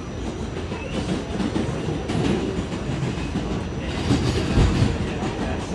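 R46 subway car running at speed, heard from inside the car: a steady rumble of wheels on rail, with a few sharper knocks from the wheels about four seconds in.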